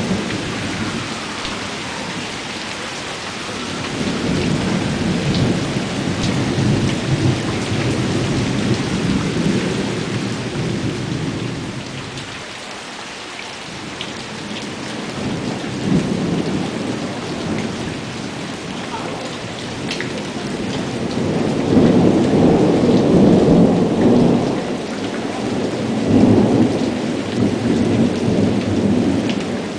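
Steady rain with thunder rolling again and again: long low rumbles build and fade, the loudest in the last third.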